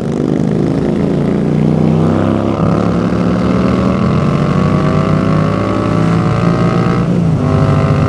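Motorcycle engine under way, its note rising steadily as the bike accelerates through a gear, then dropping at a gear change about seven seconds in, with wind rushing past.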